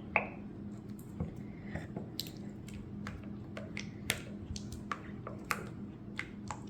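A spatula stirring a sticky white-glue slime base with blue paint in a mixing bowl: irregular wet squishes and sharp clicks as the glue pulls and pops.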